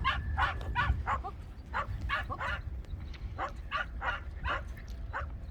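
Dog barking in a rapid series of short, high-pitched yaps, about two to three a second, with brief pauses.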